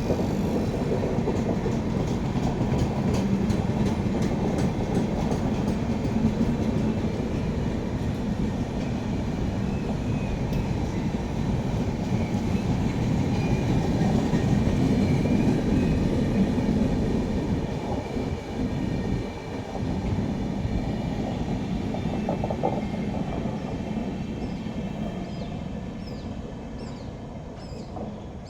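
Express passenger train running through a station without stopping: a loud, continuous rumble of wheels on rail with rapid clicking over the rail joints, fading away over the last several seconds. Birds chirp near the end.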